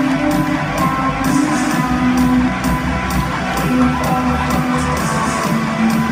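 Guitar-driven rock music with a steady beat, played over an arena's sound system.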